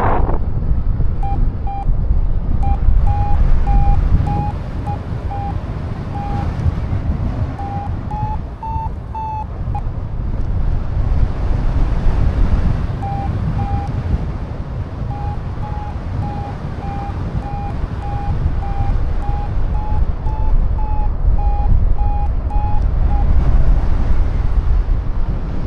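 Flight variometer beeping in short repeated chirps over heavy wind rumble on the microphone. The beeps rise a little in pitch about eight seconds in, stop for a few seconds, then resume, signalling that the glider is climbing in lift.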